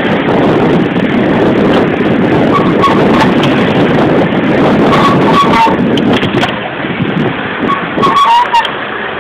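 Street traffic heard from a moving vehicle, with loud wind buffeting the microphone; the rush eases a little after about six seconds. A few short, high two-note beeps cut through it, around three seconds in, again near the middle and near the end.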